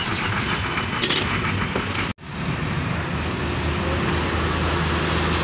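Steady engine hum over outdoor street noise, with a brief cut-out about two seconds in.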